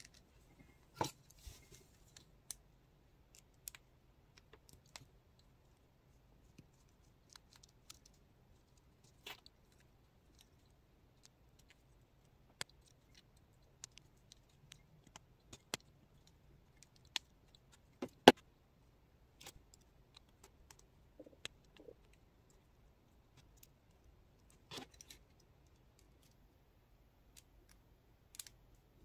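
Scattered small clicks and taps of a precision screwdriver working at the screws of a plastic toy robot cockroach, with one sharper click a little past halfway.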